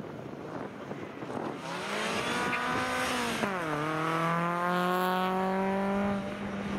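Citroën Saxo rally car's four-cylinder engine revving hard as it approaches, its note falling sharply about halfway through as the car passes close and turns, then holding a steady, slowly rising note as it accelerates away.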